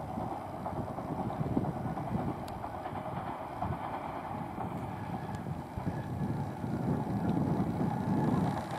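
Tobu 500 series Revaty electric express train, two three-car sets coupled, running past at a distance with a steady rail noise, mixed with wind buffeting the microphone.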